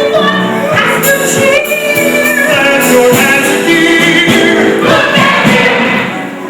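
Stage cast singing a musical-theatre song over instrumental accompaniment.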